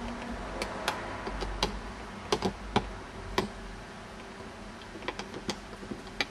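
Budgerigars clicking and tapping on a wooden play stand and its hanging toys: irregular sharp clicks, in two loose clusters, of beaks pecking and feet gripping on wood and plastic.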